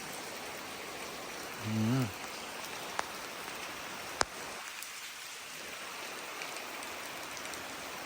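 Light rain falling steadily in a drizzle. A brief low voice-like sound comes about two seconds in, and two sharp clicks follow about a second apart, the second the loudest.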